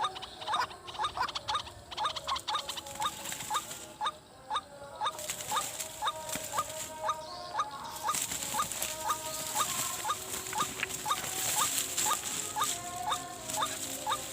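White-breasted waterhen calling: a steady string of short, rising notes, two to three a second. From about five seconds in, a high hiss joins it.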